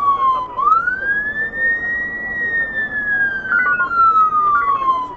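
Fire engine's wailing siren on an emergency run, a Scania CAS 20 tender, over the truck's road noise. The pitch bottoms out about half a second in, climbs over about two seconds, then falls slowly back to its low point at the very end.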